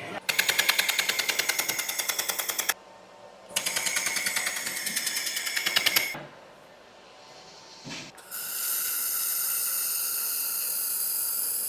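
Pulse laser welding machine firing in two bursts of rapid, evenly spaced pulses that make a fast crackling buzz, each lasting about two and a half seconds. From about eight seconds in comes a steady, even hiss.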